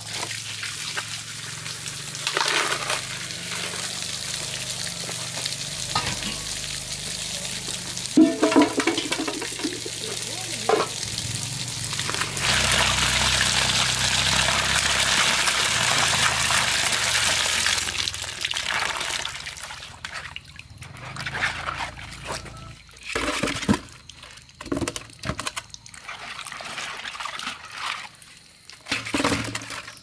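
Water running and splashing: a louder, steady pouring rush for several seconds in the middle, then scattered splashes and knocks toward the end.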